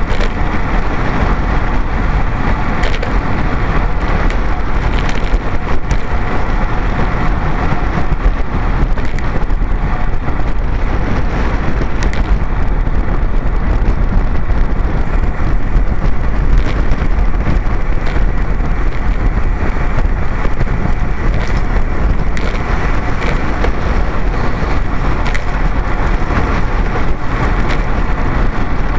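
Wind buffeting the microphone of a bicycle-mounted camera while riding, mixed with road and tyre rumble: a loud, steady, muffled rush with scattered crackles.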